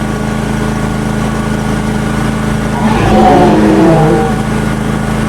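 Petrol lawn mower engine running steadily. About three seconds in, a person's voice cries out over it with falling pitch for a little over a second, the loudest moment.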